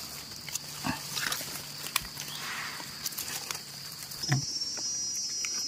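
Forest insects buzzing steadily, with a second shrill insect whine joining about four seconds in. Underneath are a low steady hum and a few light clicks from hands and knife working the mushroom.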